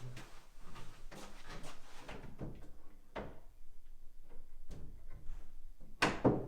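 Knocks and scrapes of solid pine wardrobe parts being handled as a door is fitted onto its locating pins, with a louder sharp wooden knock about six seconds in.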